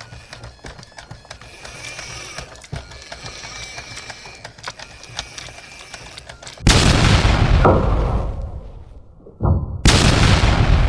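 Faint scattered clicks, then a sudden loud boom about two-thirds of the way in that fades over a couple of seconds, followed by two more booming hits near the end.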